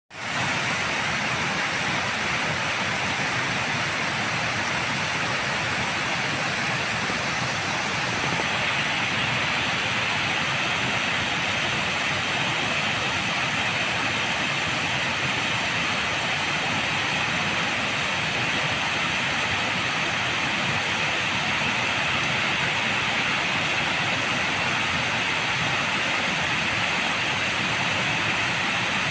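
Water pouring over the tiers of a stepped concrete weir, a steady rushing, splashing noise. It grows a little brighter after about eight seconds.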